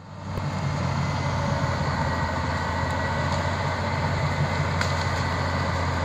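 Crawler bulldozer clearing land: its diesel engine runs steadily with a low drone under the general machine noise, fading in over the first second.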